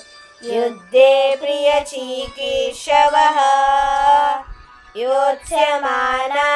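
Young voices chanting a Sanskrit verse in a melodic, sung recitation, holding long notes with short pauses between phrases.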